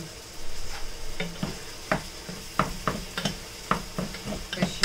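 Meat browning in a pot, sizzling, while a wooden spoon stirs it with irregular scrapes and knocks against the pot.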